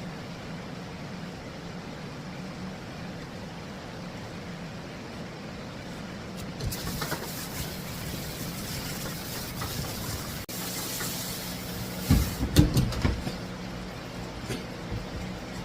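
Water hissing from a grooming-tub sprayer as a dog is rinsed, starting about a third of the way in and lasting about five seconds, over a steady low hum. Just after the spray stops comes a quick cluster of loud thumps.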